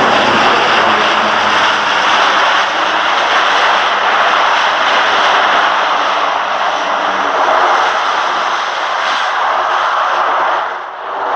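Military aircraft engines running loud and steady, with a brief dip in loudness just before the end.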